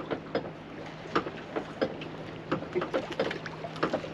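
Water slapping and lapping against the hull of a small drifting fishing boat in short, irregular splashes, over a faint steady hum.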